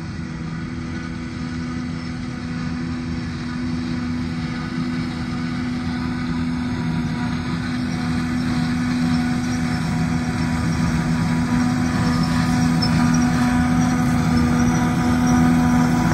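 Claas self-propelled forage harvester running under load, its engine and cutterhead chopping crop and blowing it out of the spout. It is a steady drone with a few held tones, growing louder as the machine approaches.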